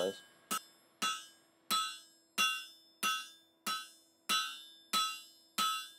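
Blacksmith's hand hammer striking a red-hot 1-inch round carbon-steel bar on an anvil while forging a spike: about nine evenly paced blows, roughly one every two-thirds of a second, each with a short metallic ring.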